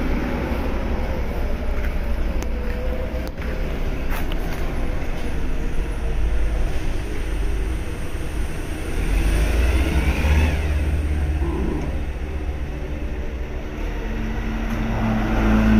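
Forklift engine running with a continuous low rumble, a steadier hum coming in near the end.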